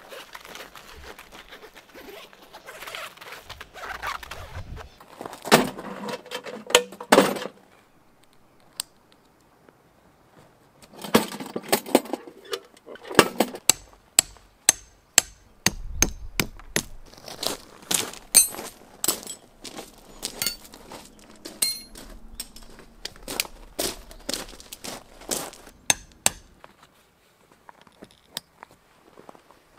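Tent fabric rustling, then a long run of sharp knocks with a metallic ring, about one or two a second: tent pegs being hammered in to pin down the air tent's skirt.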